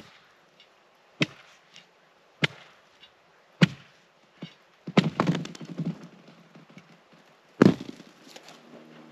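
Hard chopping strikes into ice, spaced roughly a second and a quarter apart, then a quick flurry of knocks and one more heavy strike near the end, as the ice is tested for thickness.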